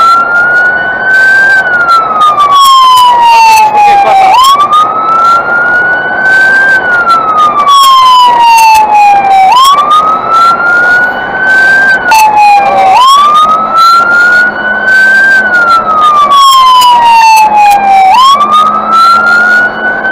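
Fire engine siren wailing. Each cycle jumps up quickly, climbs a little further and then falls slowly, starting again every four to five seconds. Many short clicks and knocks sound over it.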